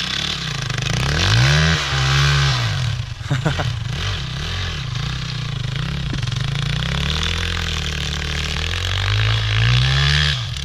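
Dirt bike engine revving hard, its pitch climbing and dropping again and again as the rider accelerates and shifts. It is loudest about a second and a half in and again near the end.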